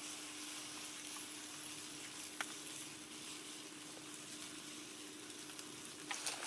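Tiger prawns basted with honey sizzling on a grill over a lit stove: a steady faint hiss with a few sharp pops, one about two and a half seconds in and several near the end, over a faint steady hum.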